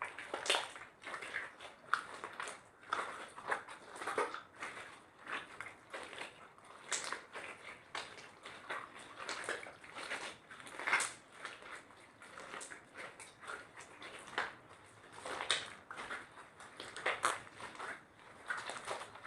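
Slime being mixed and squished by hand: irregular sticky clicks and squelches, several a second.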